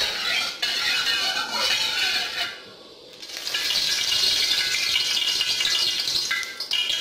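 Hissing sizzle from a hot aluminium wok on a gas burner, with a metal ladle scraping the pan at first; the sizzle drops away briefly about two and a half seconds in, then comes back steadily.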